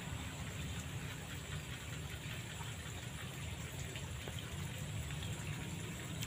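Steady outdoor ambience at a pond: a low rumble and an even high hiss, with no distinct event.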